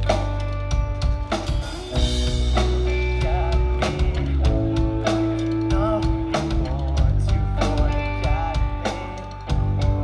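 A live pop-punk band playing an instrumental passage of a song: drum kit with bass drum and snare hits under electric guitars and bass guitar.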